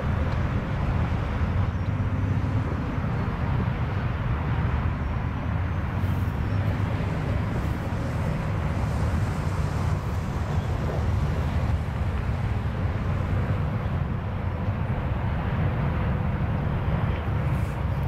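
Steady rumble of nearby road traffic, with no siren sounding.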